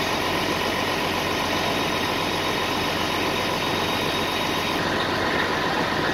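Fire truck engine idling, a steady, even drone.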